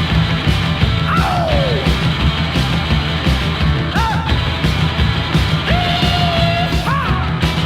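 Rock-and-roll band music with a steady driving beat in a wordless break of the song, with several sliding high notes that bend up and down.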